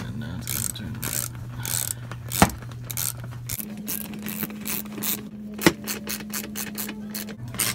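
Hand ratchet clicking in bursts as the screws holding an under-car cover are tightened, with a few sharp knocks among the clicks.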